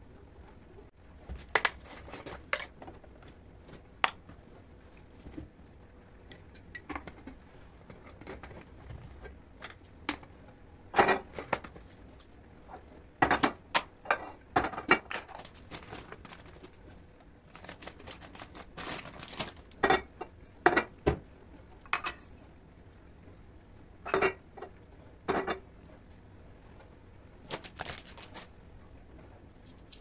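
Glass storage jars and their metal lids being handled and set down on a hard kitchen countertop: irregular clinks and knocks, in clusters around the middle and near the end. Dry goods such as loose tea and pasta are being poured into the jars.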